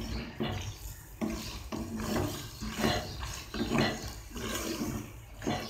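Wooden spatula stirring and scraping boiled macaroni and karahi gosht around a non-stick pan, in repeated strokes about two a second.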